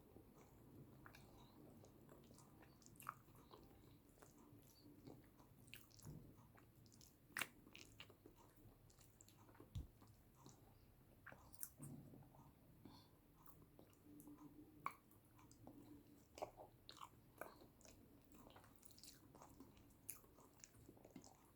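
Faint close-miked chewing and mouth sounds of someone eating yam with eggplant sauce, with many small irregular clicks and smacks.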